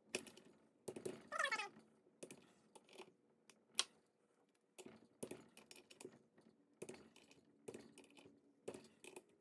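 Scattered light clicks and taps of hand tools on a small engine's crankcase: a torque wrench working and clicking as the cover bolts are tightened to 220 inch-pounds, with one sharper click just under four seconds in.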